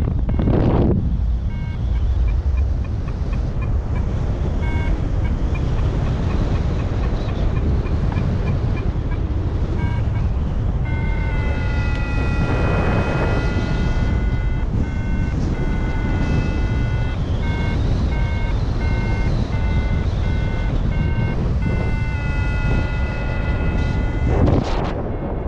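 XC Tracer Maxx paragliding variometer beeping over wind on the microphone, signalling lift. Runs of short quick beeps change to long held tones about halfway through, then go back to short beeps.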